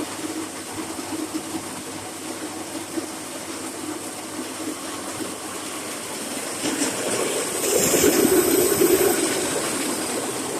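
Soybean cracking and hull-separating machine running with a steady mechanical noise, which grows louder with an added hiss for about two seconds around seven seconds in.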